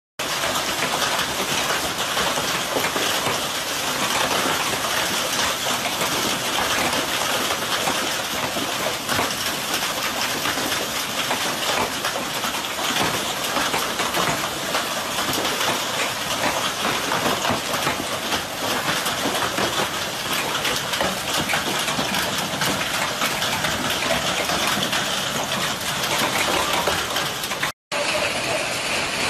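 Hailstorm: hailstones pelting the ground, a dense, steady clatter of countless small impacts mixed with the rush of rain. The sound cuts out for a moment near the end and then carries on.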